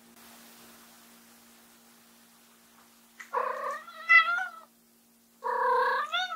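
Munchkin cat meowing loudly twice, the first call starting about three seconds in and the second near the end, calling for its owner who has left the room. The first opens with a short grunt and the second with a trill, each running into a drawn-out meow.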